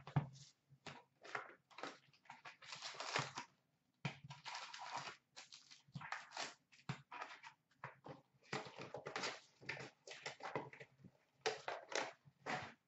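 Cardboard hobby box of Upper Deck Series 2 hockey cards being opened by hand, with its wrapped packs rustling and crinkling in short irregular bursts.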